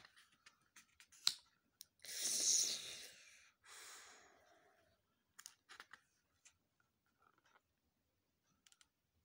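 Pages of a CD booklet being turned and handled: scattered light clicks and paper rustles, with a louder rustle lasting about a second about two seconds in and a softer one just after.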